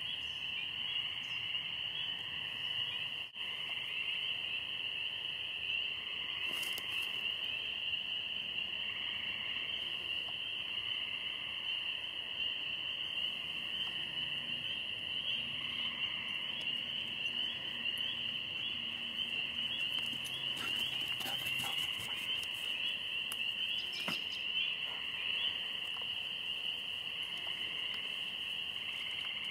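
Steady high-pitched insect chorus, a continuous shrill trill with a fine pulsing texture, dropping out for an instant about three seconds in.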